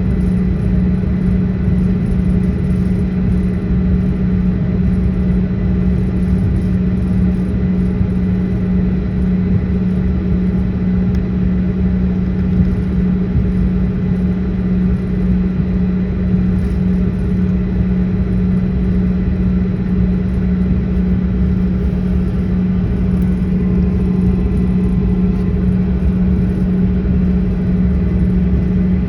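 Steady airliner cabin noise: a loud, even rumble with a constant low hum and faint high steady tones, unchanging throughout.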